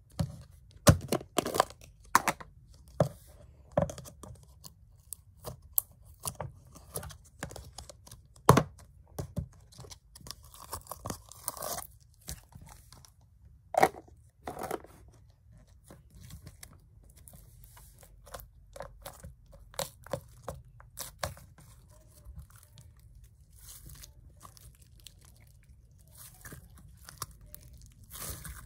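Red slime being pressed, squeezed and stretched by hand, giving irregular sticky pops, clicks and crackles. The sharpest pops fall in the first half, and the crackling is softer and more scattered after that.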